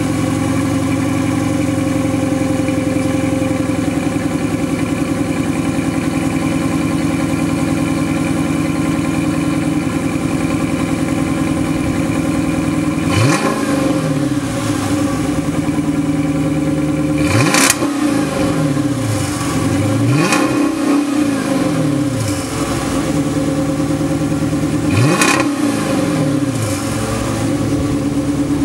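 A 2013 Dodge Charger R/T's 5.7-litre Hemi V8 with its mufflers deleted, heard at the tailpipes. It idles steadily, then from about halfway through it is blipped four times, each rev rising sharply and falling back to idle.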